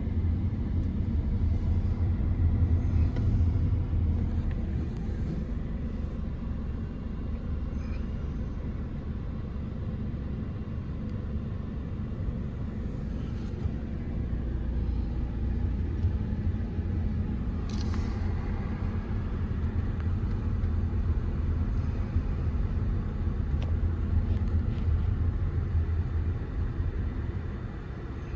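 Steady low rumble of road and engine noise inside a moving vehicle, swelling and easing a little as it drives.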